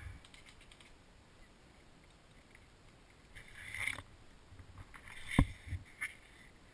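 Quiet background with a brief rustle about three seconds in, then one sharp knock a little past five seconds and two smaller clicks right after it.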